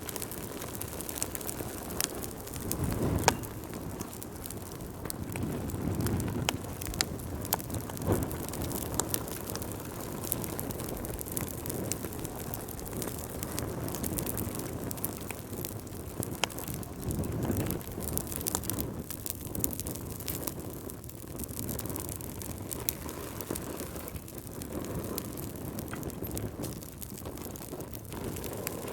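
Wood fire burning in a fireplace: a steady low rush of flames with irregular sharp crackles and pops.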